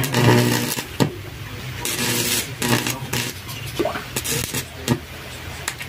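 Electric welding arc from a homemade salt-water welder, crackling and buzzing in irregular bursts as the rod is struck against a steel plate and the arc catches and breaks.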